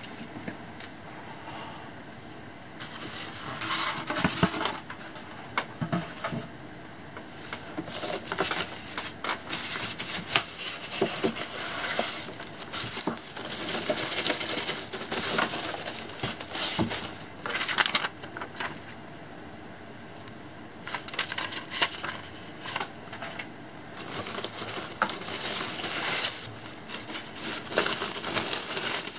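A thin plastic protective bag crinkling and rustling as it is handled and pulled off a computer monitor, in several stretches of dense crackling separated by short pauses.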